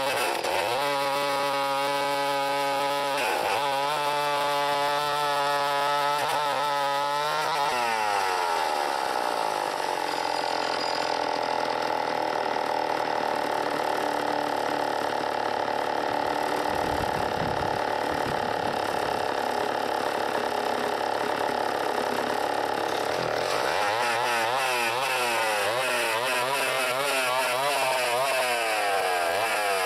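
Vintage Sears D-49 80cc two-stroke chainsaw running on a chainsaw mill, cutting through a log. Its engine speed climbs about eight seconds in and holds high, then wavers up and down near the end.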